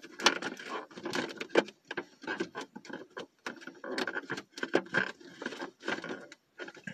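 Cardboard-and-plastic action-figure packaging being opened and handled: irregular crackling clicks and rustles as the plastic tray is worked out of the box.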